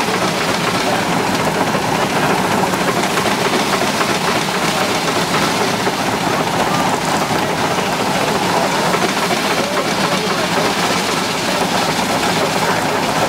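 Steam traction engine running under load on the drive belt, a loud, steady hiss and clatter of machinery with no clear beat.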